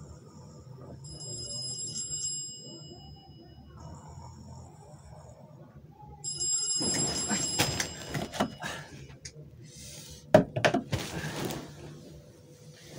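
Phone alarm sounding in high electronic tones, in a spell about a second in and again around six seconds. It is followed by blankets rustling and a sharp thunk about ten seconds in.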